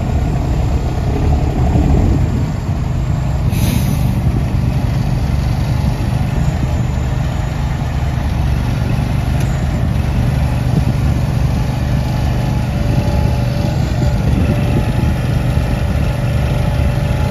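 Engine running steadily at low speed under a moving trailer load, with a brief hiss about three and a half seconds in.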